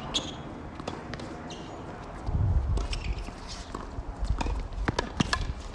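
Tennis rally on a hard court: sharp pops of racket strings hitting the ball and the ball bouncing. Several loud hits come close together near the end, and there is a low rumble about halfway through.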